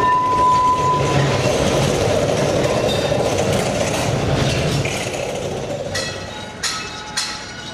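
Lisbon street funicular car (Ascensor do Lavra) rolling away up its steep track, its noise fading, with a brief high squeal in the first second. Near the end a few sharp metallic clinks ring out.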